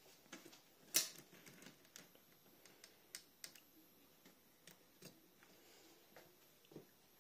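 Plastic TT:120 model railway turntable being turned by hand: an irregular run of small sharp clicks and ticks, the loudest about a second in.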